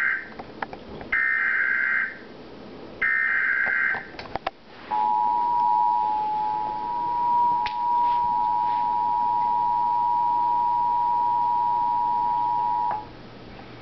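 Emergency Alert System tones on a radio broadcast. First the end of one digital SAME header burst, then two more, each about a second of buzzing data tones. About five seconds in comes the two-tone attention signal, a steady chord held for about eight seconds that cuts off near the end. Together they mark the start of a flash flood warning.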